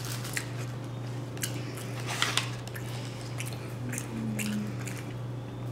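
A person chewing a mouthful of fried chicken sandwich close to the microphone: irregular small clicks and smacks of the mouth, over a steady low hum.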